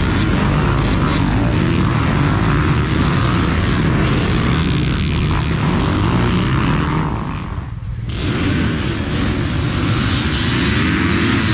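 A pack of dirt bikes revving hard together as they launch off the start line, many engines running at once in a dense, overlapping drone. The sound dips briefly about eight seconds in.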